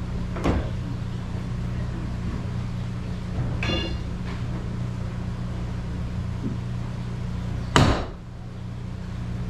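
A few sharp knocks, the loudest near the end, as a mallet strikes the iron dog that clamps a squared log to an old sawmill carriage. Under them runs a steady low mechanical hum.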